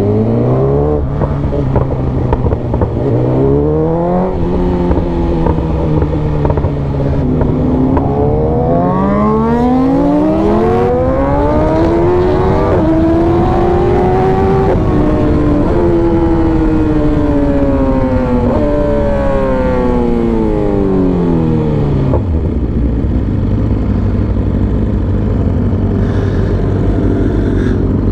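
Motorcycle engine under way, its pitch rising in a couple of short pulls, then climbing in one long sweep to a peak near the middle and falling back down. It settles to a steady low note for the last several seconds.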